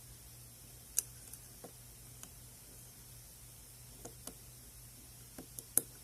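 Scattered small metallic clicks and ticks of a lock pick and tension wrench working the pins in the keyway of a modified Saker 65 mm padlock, with the sharpest click about a second in and the loudest near the end. A faint steady low hum lies underneath.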